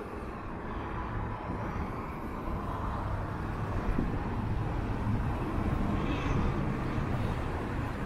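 City street ambience at a downtown intersection: a steady low rumble of traffic.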